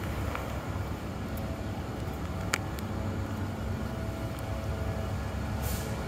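City street background: a low steady rumble of traffic, with a few faint clicks and one sharper click about two and a half seconds in.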